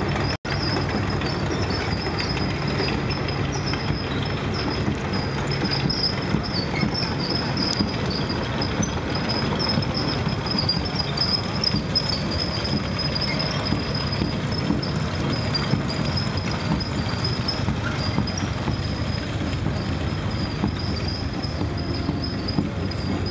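Military vehicles driving past in a parade column: engines running and a light tank's steel tracks clattering on the pavement, with a continuous high wavering squeal over the din.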